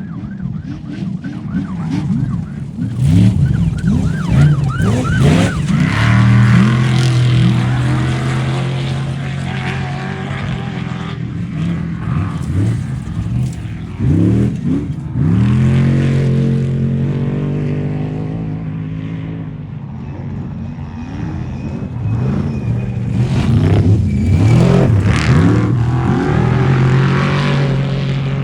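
Off-road race vehicles' engines revving hard, the pitch repeatedly climbing and dropping. Twice the engine holds at a steady high rev for several seconds.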